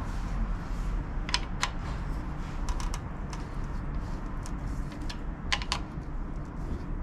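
Light metallic clicks and ticks of a hand-turned T45 Torx key working the clamp screw of a motorcycle slip-on exhaust, tightening it. Two pairs of sharper clicks come about a second in and again about five and a half seconds in.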